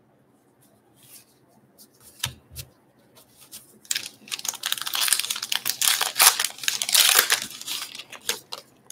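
A trading-card pack wrapper being torn open and crinkling for about four seconds, starting around four seconds in; before that, a few light clicks and two soft taps as the cards are handled.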